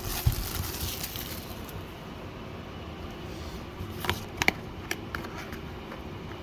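Booster box packaging being handled: a papery rustle for the first second or so, then a few light clicks and taps.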